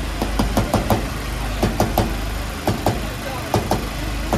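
Shaved ice being packed by hand into a ball around a stick: quick clusters of three or four sharp pats as the palms press and squeeze the ice, over a steady low hum.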